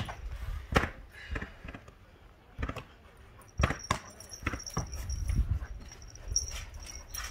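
A run of sharp thumps and knocks, one to three a second, from balls and a child bouncing on a trampoline mat, with a Labrador puppy whimpering among them.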